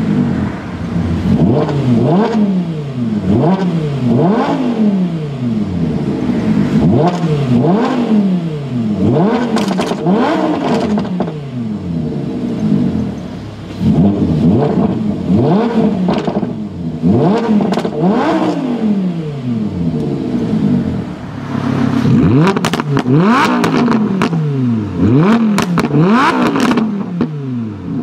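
Lamborghini Huracán LP610-4's naturally aspirated V10 being revved over and over through its exhaust, the pitch climbing sharply and falling back about once a second.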